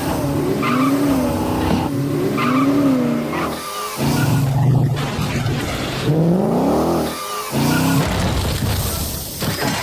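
Car engines revving and tyres squealing in a car chase. Twice early on the pitch swings up and down, and about six seconds in there is a long rising rev.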